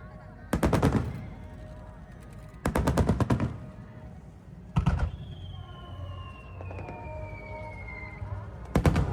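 Aerial fireworks going off in quick volleys of bangs, four bursts in all. Between the third and fourth bursts a long whistle falls steadily in pitch.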